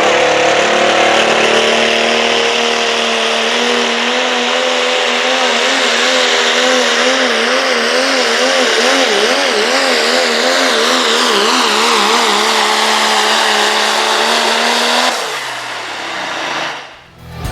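Diesel pickup truck engine at full throttle pulling the sled, holding a high, steady pitch that starts to waver up and down about six seconds in. About fifteen seconds in the throttle is let off and the revs fall away.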